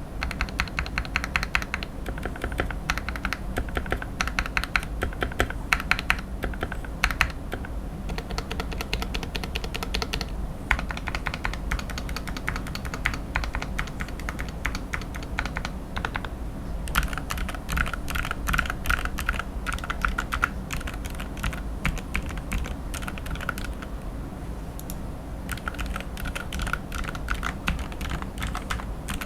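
Steady, fast typing on a Gamakay MK68 keyboard with optical Gateron Yellow switches, a dense run of key clacks. The typing pauses briefly about halfway through and then resumes.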